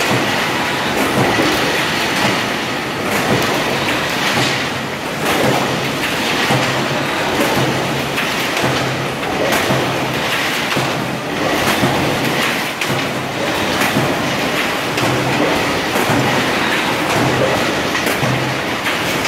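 An 18-litre can body production line running: steady machinery noise with metallic clicking and clatter. A regular low pulse repeats under it as tinplate can bodies are carried along the conveyor.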